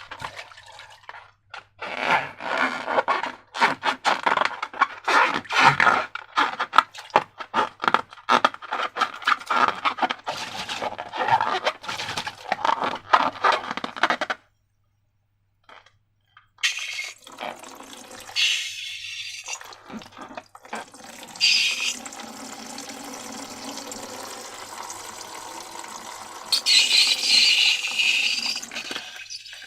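Slime being worked by hand: a long run of quick, wet, sticky squelches and pops. After a brief gap comes a steadier liquid pouring sound, with a few short louder bursts.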